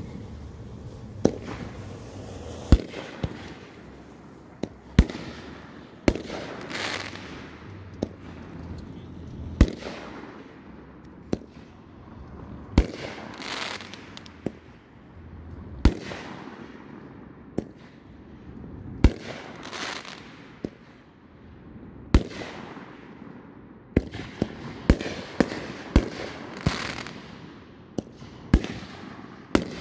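Aerial fireworks shells bursting overhead: sharp bangs every one to three seconds, coming faster near the end, several followed by about a second of crackling hiss from the glittering stars.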